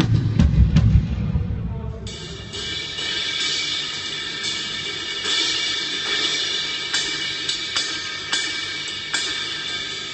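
Drum kit being sound-checked: heavy bass drum hits for the first two seconds, then cymbals struck repeatedly and left ringing.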